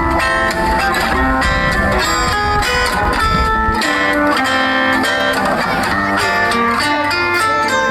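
Background music led by plucked guitar playing a melody; the low bass part drops out about four seconds in.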